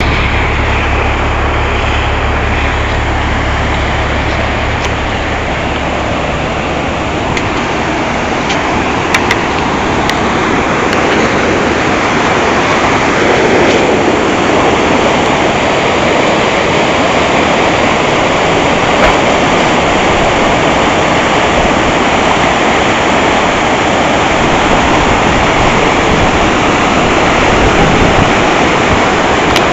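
Swollen, flooded river rushing through rapids and spilling over a low dam: a loud, steady roar of churning water, with an added low rumble in the first few seconds.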